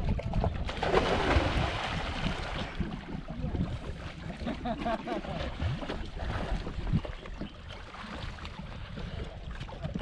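Water splashing and sloshing around a swimmer, loudest and busiest for a second or two near the start, with wind rumbling on the microphone.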